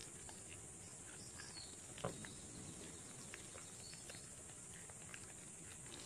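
Faint soft squishing and small ticks of mashed saba banana and flour being kneaded by a gloved hand in a plastic basin, with one sharper click about two seconds in, over a steady high hiss.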